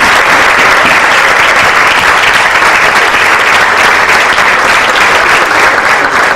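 Audience applauding loudly and steadily, a dense patter of many hands clapping.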